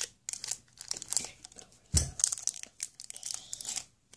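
Thin clear plastic packet being crinkled and torn open by hand: a run of short crackles and rips, the loudest about halfway through.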